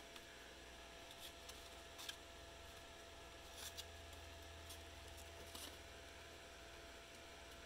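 Near silence with a few faint, short crackles of brown craft paper being handled and shaped, the clearest about two seconds in and a close pair near the middle.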